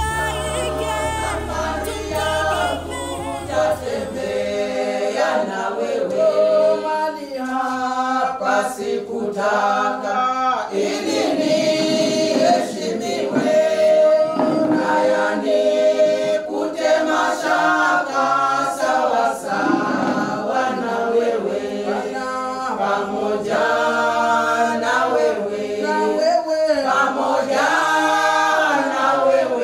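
A choir of voices singing without instruments. A low bass underneath fades out in the first few seconds.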